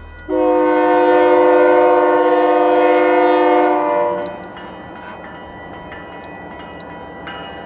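Locomotive air horn sounding one long chord of several notes lasting about three and a half seconds. Its pitch drops as it ends while the train passes, and the train then rolls on more quietly.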